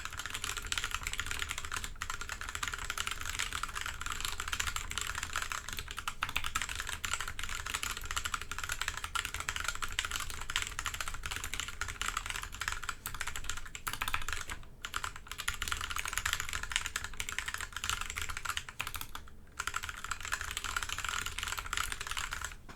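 Fast, continuous typing on a Massdrop Alt mechanical keyboard with Kailh Box Pink switches whose click bars are removed, making them linear, with Gateron Yellow switches on the spacebar and backspace and clipped, lubed stabilizers. The key strokes run densely, with two short pauses in the second half.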